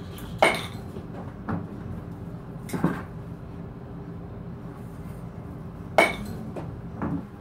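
Sharp knocks of a youth baseball bat hitting balls off a batting tee, the loudest about half a second in and about six seconds in, with a softer knock near three seconds.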